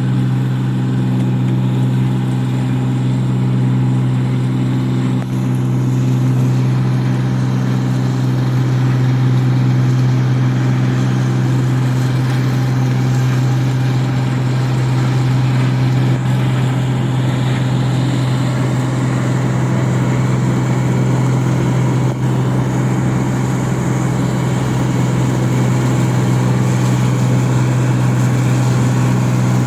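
Rice combine harvester's engine running steadily at a constant pitch, a continuous low hum.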